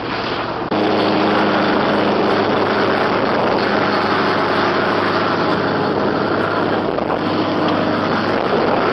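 A motor vehicle's engine running steadily under heavy noise, with a sudden step up in loudness a little under a second in.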